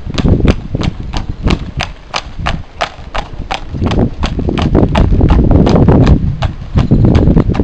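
A horse's hooves clip-clopping at a trot on a hard paved yard, a steady beat of about three strikes a second. The hoofbeats are loudest and mixed with a low rumble as the horse passes close, around the middle.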